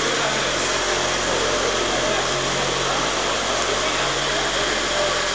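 A forklift truck running steadily as it drives off: an even mechanical noise with a faint hum and no breaks.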